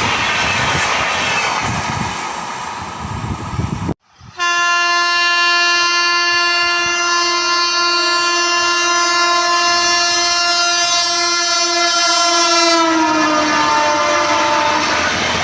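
An express train rushing past, its wheels on the rails making a steady roar. After an abrupt cut about four seconds in, a locomotive horn sounds one long steady blast for about nine seconds. The horn drops in pitch near the end as the engine passes, and the rush of the train's wheels comes up under it.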